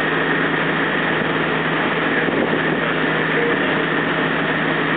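Rescue boat running under engine: a steady engine hum under a dense, even rushing noise of water and wind, with no change in level.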